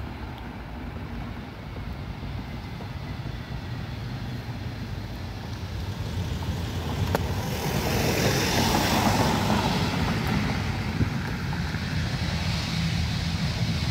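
Jet engines of an Airbus A321 on the runway: a steady low rumble that grows louder and hissier about seven or eight seconds in.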